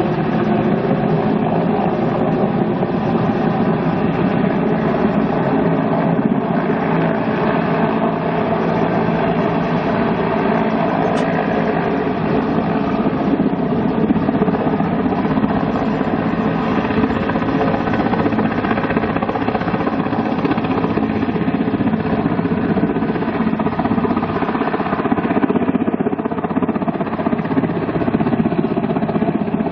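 Mil Mi-8 helicopter flying overhead, its twin turboshaft engines and main rotor running steadily at an even level.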